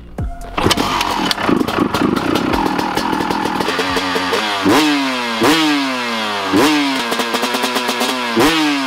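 Honda CR250 two-stroke dirt bike engine running with a rapid crackle. From about four seconds in, the throttle is blipped roughly once a second, each rev rising sharply and falling back.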